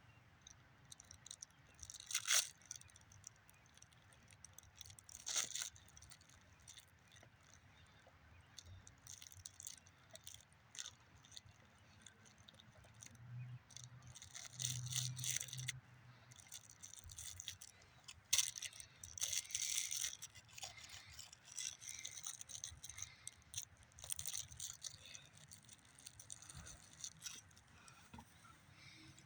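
An Akita chewing at a crackly object, with irregular crunching, rattling and tearing. Sharp clicks come every few seconds, in denser bursts through the middle.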